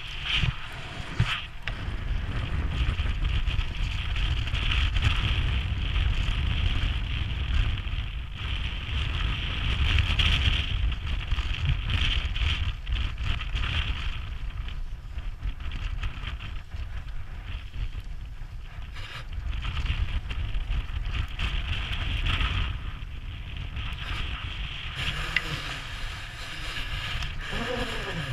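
Wind buffeting the helmet camera microphone: a gusty low rumble that rises and falls, with a thinner hiss above it.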